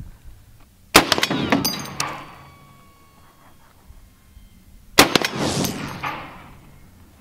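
Two shots from a heavy bipod-mounted rifle firing armor-piercing rounds, about four seconds apart, each a sharp blast followed by a long echo dying away over about a second.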